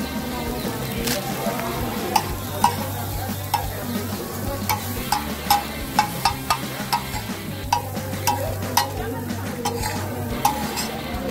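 Metal spatula scraping and clinking on a large flat griddle (tawa) as chaat ingredients, chickpeas and potato patties, are stirred and chopped. There is a steady sizzle of frying, and from about two seconds in, sharp clinks come irregularly, about twice a second.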